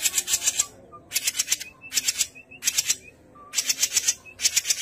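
Cucak jenggot (grey-cheeked bulbul) giving a harsh, rapid rattling chatter in about six short bursts, with a few brief high chirps between them.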